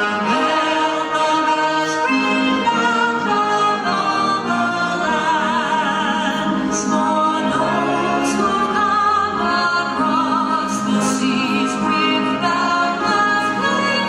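Music: a singer holding long notes with vibrato over instrumental accompaniment.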